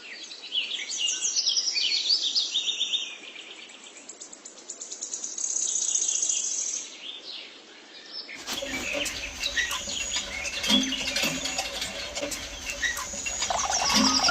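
Small birds chirping in quick repeated trills. About eight seconds in, the sound changes abruptly to a fuller, busier mix of chirps and clicks.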